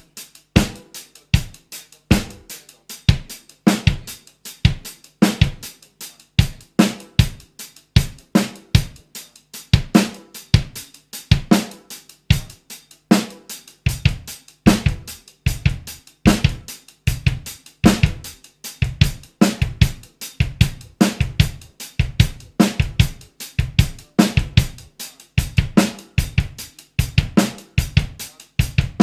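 Solo drum kit playing a funk coordination exercise: steady sixteenth notes on the hi-hat, snare on beats two and four, and the bass drum stepping through the sixteenth positions of the beat. About halfway through, the bass drum strokes come heavier and more often.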